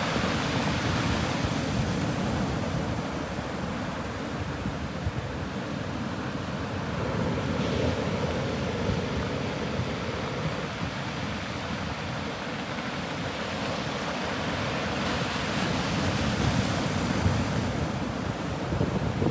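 Sea waves breaking and washing on the shore of a rocky cove, a steady rushing surf that swells and eases, with some wind rumble on the microphone.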